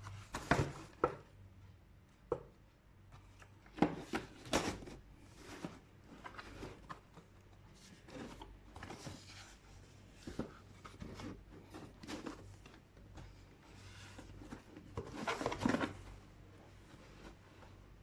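Cardboard shoe box being handled and opened, with its wrapping rustled: scattered knocks, scrapes and rustles, loudest about half a second in, around four seconds in and again around fifteen to sixteen seconds in, over a faint steady low hum.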